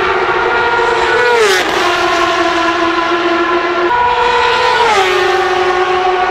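Formula 1000 race cars with 1000cc superbike engines passing at speed, running at high, steady revs. The engine note holds a steady pitch and then drops as a car goes by, about a second and a half in and again about five seconds in. The pitch climbs again just before four seconds as the next car approaches.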